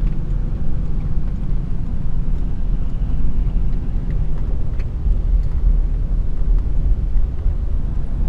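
Steady low rumble of a van driving along a road, engine and road noise heard from inside the cabin.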